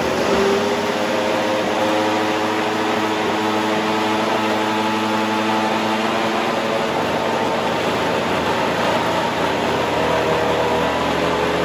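Vitamix blender motor running loud and steady, blending ice, piña colada mix and rum into a thick frozen slush, with a steady motor whine over the churning.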